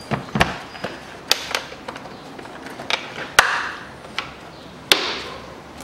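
Irregular sharp clicks and knocks of engine-bay parts being handled and fitted as the air intake duct is refitted, about eight in a few seconds, the loudest a little past the middle and another near the end.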